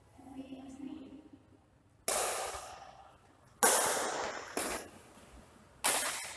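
Badminton racket strings striking a shuttlecock four times during a rally, sharp cracks about a second apart, each ringing on in the echo of a large hall.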